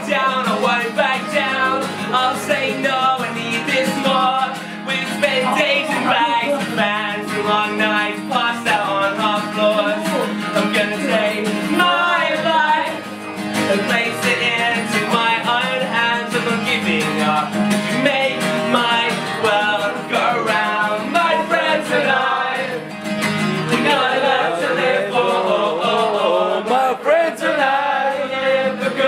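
Acoustic guitar played live with singing over it, without a break.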